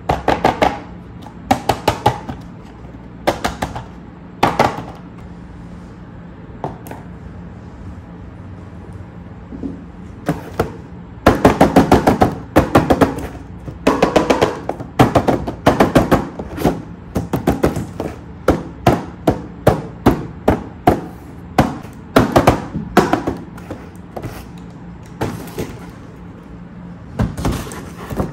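Cardboard toy boxes with plastic windows being handled and set down on a wooden table: clusters of sharp knocks and rattles with short quiet gaps, busiest in the second half.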